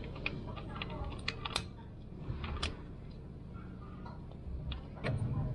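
Small irregular clicks and ticks as a drain plug is threaded back into a scooter's crankcase by hand. A low hum comes in near the end.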